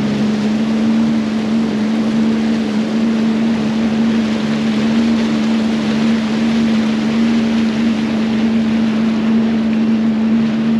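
Sea-Doo GTX 170 personal watercraft running at a steady cruising speed: an even engine and jet-pump drone that holds one pitch, over a constant rush of water along the hull.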